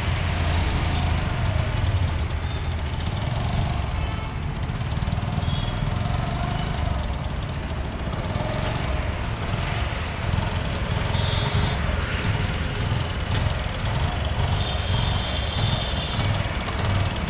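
Steady low rumble of motor vehicle engines and street traffic.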